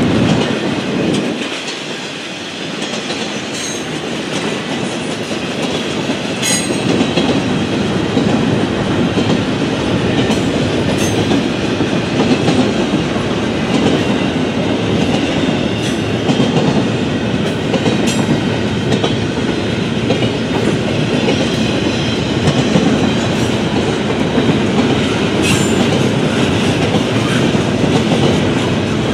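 Double-stack intermodal container train rolling past, its steel wheels making a steady rolling noise on the rails, with occasional sharp wheel clicks.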